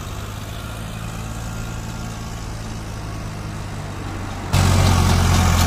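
Farmtrac 60 tractor's diesel engine, without a turbocharger, running steadily under load while pulling an 18-disc harrow with its gangs fully opened through dry soil. About four and a half seconds in the engine sound becomes suddenly much louder.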